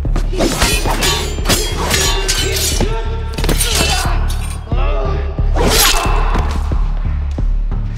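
Dubbed sword-clash sound effects: a quick run of steel blades striking, each hit ringing, over background music with a heavy bass. A dense flurry comes in the first three seconds and another burst about six seconds in.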